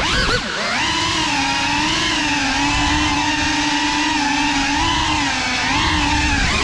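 Motors and propellers of a Cinelog 35 cinewhoop FPV drone whining as it flies. The pitch sweeps up sharply at the start, holds fairly steady, then dips and rises again near the end as the throttle changes.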